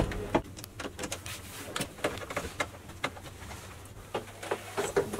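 Irregular plastic clicks and knocks from a car's centre-console armrest housing being handled and lifted out, over a faint low steady hum.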